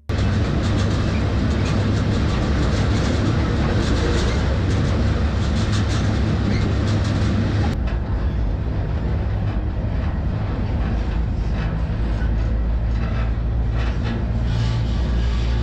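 Loud, steady running noise of a moving intermodal freight train heard from on board a well car: a deep rumble with a constant rattle and clatter of the car and wheels. About eight seconds in the sound changes abruptly, the high hiss dropping away while the rumble continues.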